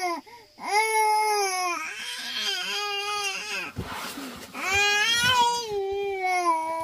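Infant crying in a string of long wails, with a noisy catch of breath about four seconds in.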